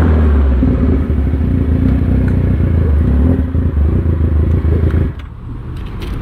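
Sport motorcycle engine running steadily at low revs as the rider slows and pulls over for a police stop; the sound drops in level about five seconds in.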